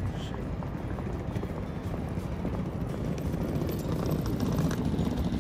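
Steady low rumble of wind buffeting a phone's microphone outdoors, with faint footsteps on a paved walkway.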